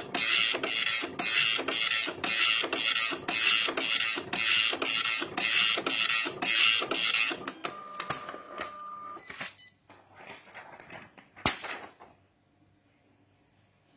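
Epson LQ-300+II 24-pin dot-matrix printer printing on continuous-form paper, the print head buzzing across in quick passes, about two to three a second. The printing stops about seven seconds in, followed by a brief steady whine, a few clicks and one sharp click before it goes quiet.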